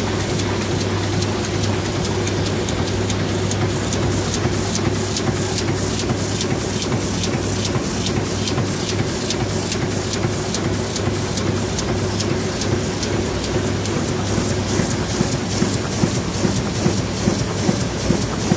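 Heidelberg Speedmaster SM 74 four-colour sheetfed offset press running: a steady mechanical hum with a fast, regular clicking that gets sharper near the end.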